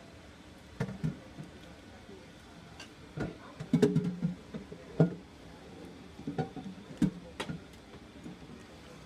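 Kitchen knife cutting a block of Velveeta cheese on its foil wrapper, the blade knocking on the countertop in a run of irregular sharp knocks, busiest about four seconds in.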